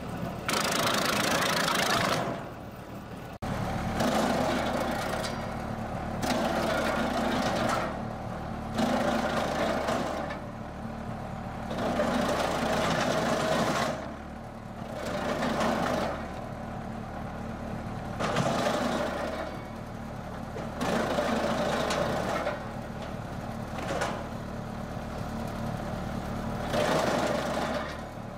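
Engine-driven firewood machine running steadily. A louder surge of working noise comes back every two seconds or so as the machine goes through repeated cycles.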